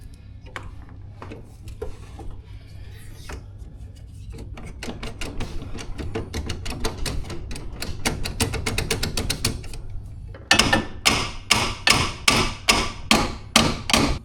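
Hammer tapping on metal to free a seized pedal part on a garden tractor. Rapid light taps build up from about four seconds in, then a run of harder blows, about two or three a second, over the last four seconds.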